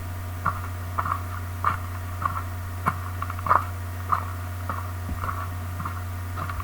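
Footsteps sound effect playing back: short, even steps about every 0.6 s. A steady mains hum sits under it.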